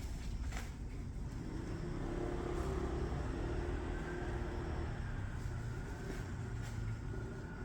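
Low, steady rumble of road traffic, with a vehicle's engine tone swelling and fading in the middle.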